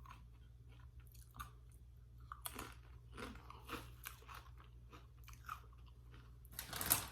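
Close-up chewing and crunching of Doritos tortilla chips dipped in queso: irregular crisp crunches with a louder bite just before the end.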